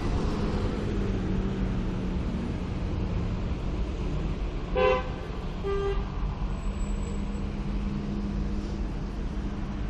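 Steady road-traffic rumble, with a car horn giving a short toot about five seconds in and a second, fainter toot about a second later.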